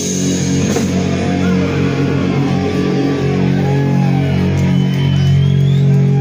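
Live heavy rock band through amplifiers: distorted electric guitar and bass hold a droning low chord with no drumbeat, a few higher notes bending over it.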